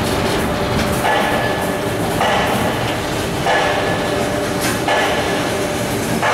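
Clamshell grab crane machinery running, a steady mechanical noise with a whirring surge that comes and goes about every second and a bit.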